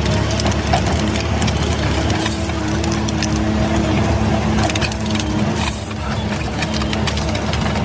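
A machine's engine running steadily while wood cracks and splinters: a tree-pruning machine cutting dead branches off a standing trunk.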